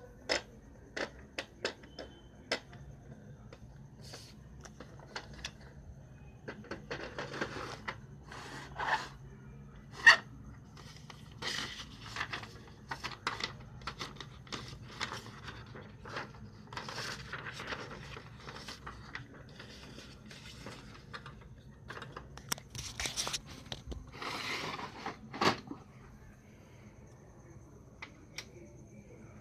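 Sheets of printer paper rustling and sliding as they are handled in a Ricoh SP 200 laser printer's paper tray, with sharp plastic clicks from the tray and its guides. The clicks come mostly in the first few seconds, and the loudest one is about ten seconds in.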